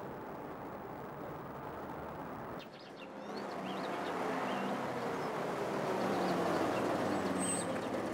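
Steady outdoor noise, then a van engine running as the van pulls up, its pitch slowly sinking as it slows, with birds chirping.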